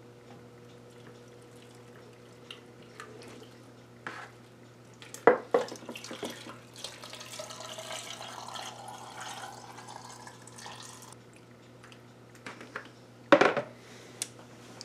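Salt brine poured from a plastic bowl into a glass mason jar packed with cucumbers, splashing and gurgling for several seconds, with a faint tone rising as the jar fills. Two sharp knocks, about 5 s in and near the end, are the loudest sounds.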